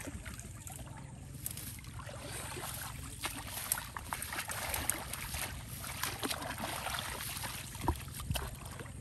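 Water sloshing and splashing with scattered small clicks and knocks, over a steady low rumble.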